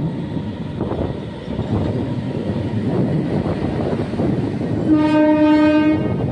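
Passenger train running into the station, its wheels clattering over the rails, with one horn blast of about a second near the end.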